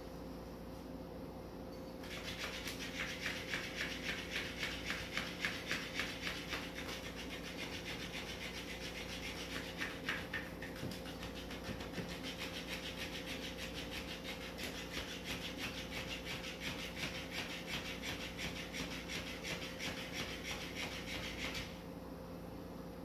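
Motorised flopping fish cat toy flapping its tail in rapid, even strokes, a scratchy rubbing rhythm that starts about two seconds in and cuts off shortly before the end.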